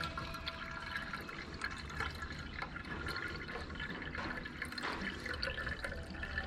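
Water pouring from a plastic jug into a car's radiator filler neck, a steady stream as the radiator is topped up.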